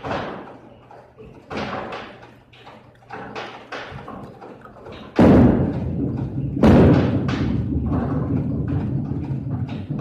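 Bowling balls landing on a wooden lane with a heavy thud, two of them about a second and a half apart, each rolling on with a steady low rumble. Before that, scattered knocks and clacks.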